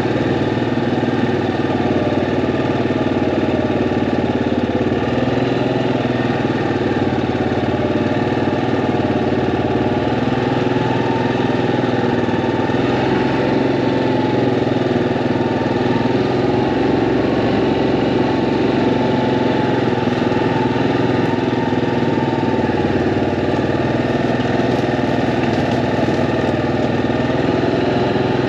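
Yamaha Grizzly ATV engine running steadily, its pitch drifting gently up and down.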